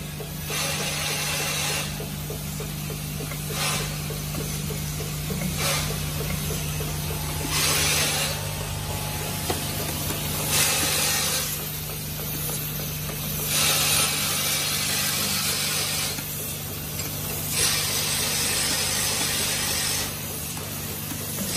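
Automatic bolt-and-nut assembly machine running: a steady hum under continuous clattering of its mechanism, with short bursts of hiss every two seconds or so.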